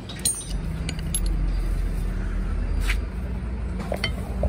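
Several sharp metal clinks from steel hydraulic jack parts being handled, over a steady low rumble.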